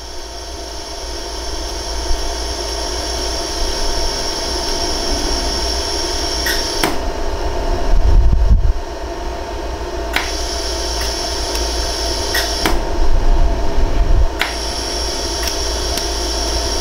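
LaserStar jewelry laser welder running with a steady fan hum, broken by a few single sharp clicks of laser pulses as 14K gold welding wire is fused into the seam of a ring. The hum's high hiss drops out twice for a few seconds.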